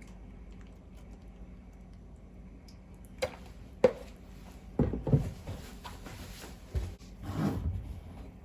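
Objects being handled: two sharp clicks, then a few knocks and a thud with short rustling scrapes between them.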